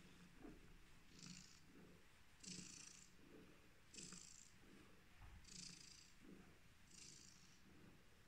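Long-haired black-and-white domestic cat purring faintly while being stroked, the purr swelling and easing with its breathing about every second and a half.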